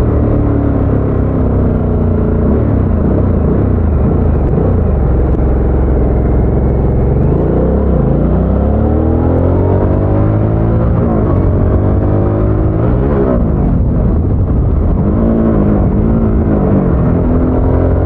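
Harley-Davidson Sportster S's Revolution Max 1250 V-twin running on its stock exhaust while the bike is ridden. The engine note falls off, climbs steadily from about halfway through, drops and picks up again briefly, then rises again near the end as the bike accelerates.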